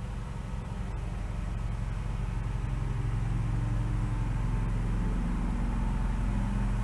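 A steady low rumble with a faint hum in it, growing a little louder about two seconds in.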